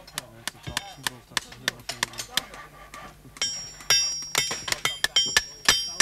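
Farrier's hammer striking over and over at an irregular pace: duller taps at first, then from about halfway ringing metallic strikes on a steel horseshoe.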